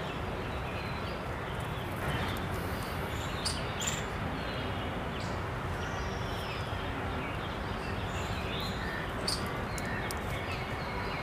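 Outdoor ambience: steady background noise with a few short, high bird chirps, some around three to four seconds in and another near nine seconds.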